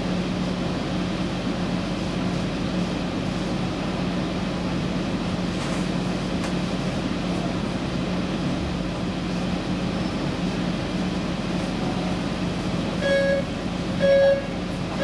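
Helsinki Metro M200 train standing still, its onboard equipment humming steadily at a low pitch. Near the end come three short electronic beeps about a second apart, the door-closing warning before departure.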